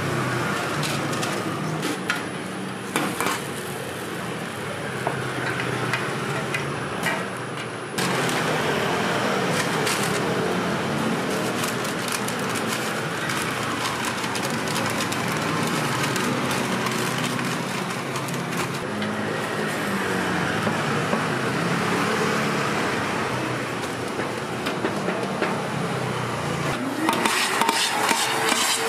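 Street-stall ambience: a steady wash of traffic and street noise with scattered metal clinks and taps, as of utensils on a griddle. The sound changes abruptly twice, and near the end a hum rises in pitch and then holds steady.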